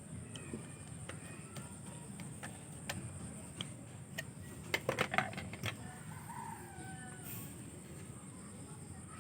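A rooster crowing faintly, with a short falling call about six seconds in. A quick run of sharp clicks and knocks comes just before it, about five seconds in, and a few single clicks are spread through the rest.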